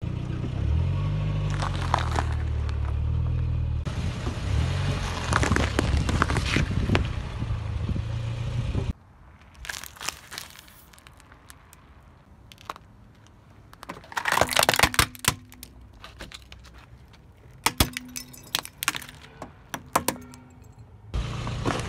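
Car engine running and revving up twice while objects crunch under a tyre. About nine seconds in the engine sound cuts out, and a quieter run of sharp cracks and snaps follows: hard plastic breaking under a car tyre.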